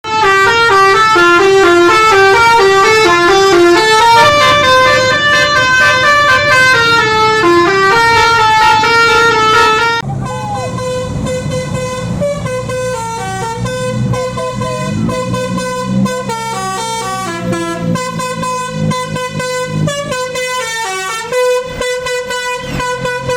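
Telolet multi-tone bus horn playing a stepped melody, very loud for the first ten seconds. About ten seconds in the level drops, and a bus engine running under load is heard beneath a continuing horn melody.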